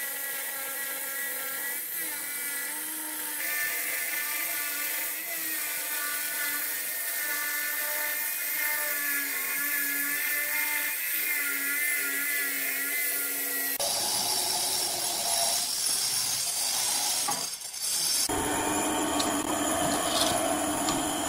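Handheld electric stone-cutting saw cutting through a granite slab, its whine wavering as the load on the blade changes. About fourteen seconds in it gives way to a different power tool working the stone.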